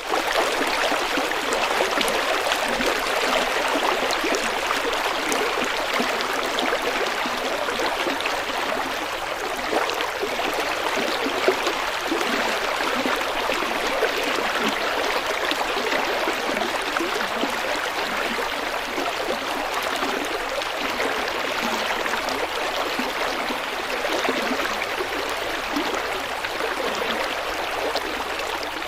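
River water flowing over rocks, a steady rushing and babbling of the current.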